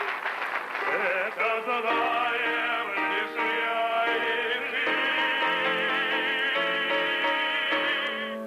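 Stage song with piano accompaniment, sung in an operatic style with strong vibrato: shorter notes at first, then a long held note through the second half.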